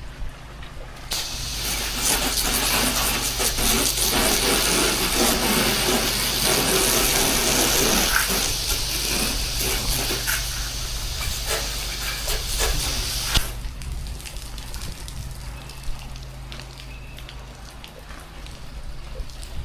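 Pressure washer running steadily, its water spray hissing from about a second in and cutting off about two-thirds of the way through, leaving the machine running on.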